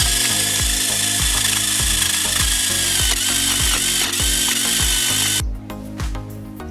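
Small electric motor of a model drilling rig whirring at a high pitch, its tone wavering as it works, over background music with a steady beat. The motor whine cuts off about five and a half seconds in, leaving a few clicks.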